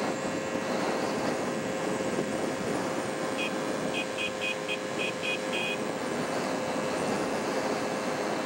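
Steady road and engine noise of a car driving along a paved road, with a constant hum underneath. A quick run of about eight short, high chirps comes midway.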